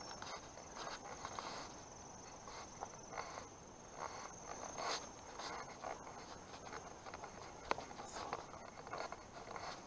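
Footsteps crunching on a leaf-strewn woodland path, with a steady high-pitched insect trill behind them.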